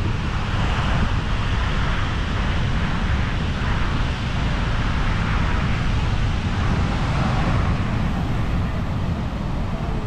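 Wind noise on the microphone over the wash of surf breaking on the beach, a steady rumble with a hiss that swells and fades.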